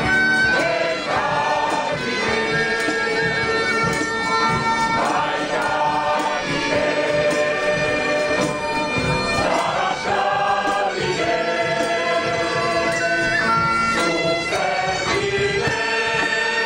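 Large crowd singing a song in Basque together, with a wind instrument playing along and holding long notes.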